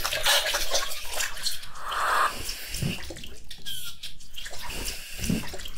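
Planetarium granular synth instrument in UVI Falcon sounding a patch: a dense texture of hiss and clicking grains, with a short low swoop about three seconds in and another near the end.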